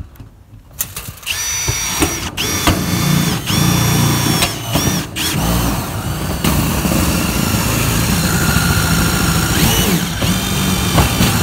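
Milwaukee M18 cordless impact driver with a roofing-screw bit driving screws into corrugated metal roofing sheets. It makes several short runs, each starting with a quick rising whine over a low rattle, then a longer steady run in the second half.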